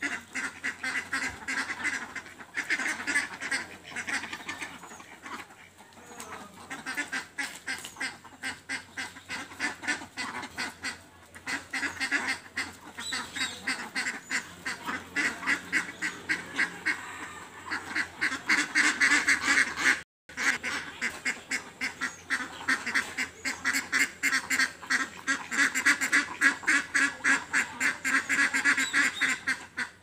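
A flock of domestic ducks quacking continuously in rapid, overlapping calls, louder in stretches.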